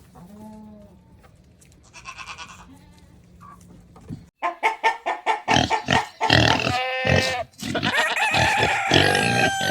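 Farmyard animals: goats bleating and chickens clucking, with a few scattered calls at first and then much louder, busier calling from about four seconds in.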